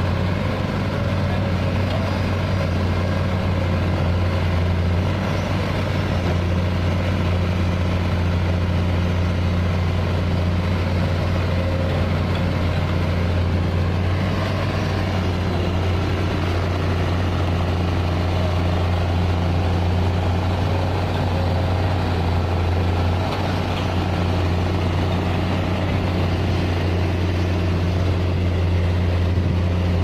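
Hino 500 concrete mixer truck's diesel engine running steadily at an even speed, a constant low hum with no change in pace.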